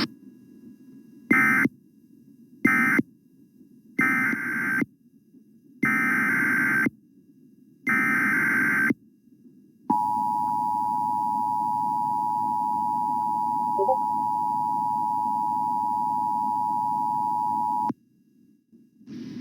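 Emergency Alert System tones: five short buzzy digital SAME data bursts about a second apart, the first two very brief, followed by the two-tone EAS attention signal held for about eight seconds before it cuts off.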